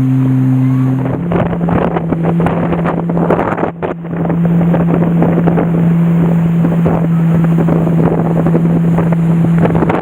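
Motorboat engine running steadily, its pitch stepping up about a second in as it speeds up, with wind buffeting the microphone.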